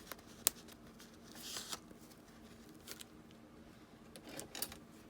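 Small clicks and rustles of hands working a metal eyelet through a punched hole in a bubble-mailer journal cover, with one sharp click about half a second in and a short rustle about a second and a half in.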